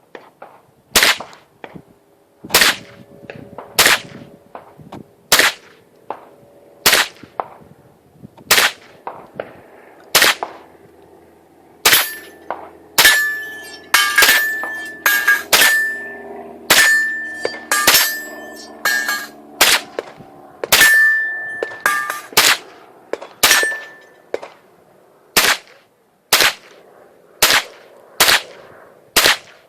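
SIG Sauer 522 .22LR semi-automatic carbine firing about two dozen single shots at a steady pace, roughly one a second and quicker in the middle. In the middle part, many hits are followed by a short metallic ring from steel targets.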